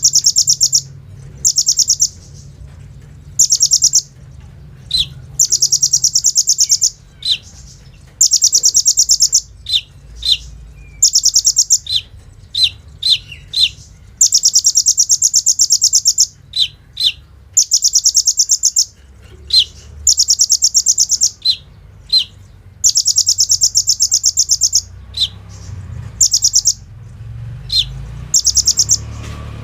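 Kolibri ninja sunbird singing: fast, high rattling trills of a second or two each, again and again, alternating with short sharp chips.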